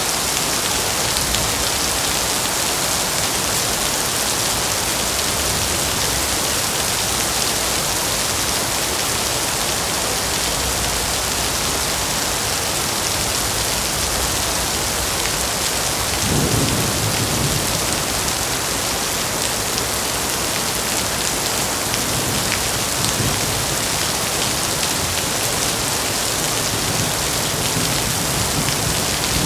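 Heavy rain falling steadily as a dense hiss, with a low thunder rumble swelling about halfway through and again near the end.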